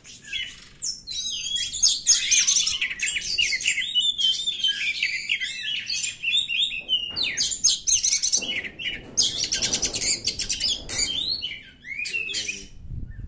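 Oriental magpie-robin singing a fast, varied song of rapid chirps and whistles, with short pauses and a brief break near the end.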